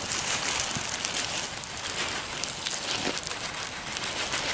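Plastic bag crinkling as crushed crackers are shaken out of it into a metal cup of soup, with small scattered ticks throughout.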